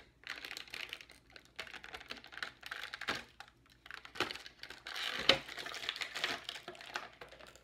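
Stiff clear plastic blister packaging crinkling and crackling as it is handled and pried open, with many irregular clicks and a sharper snap about five seconds in.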